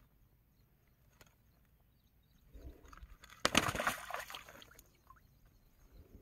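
A rohu splashing and thrashing in the water as it is put into a mesh keep net: a burst of splashing about three and a half seconds in, lasting about a second and dying away.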